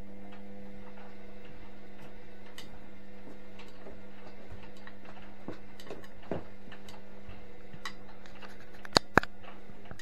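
Indesit front-loading washing machine giving a steady low hum with light ticks and clicks scattered through it, and two sharp clicks in quick succession near the end.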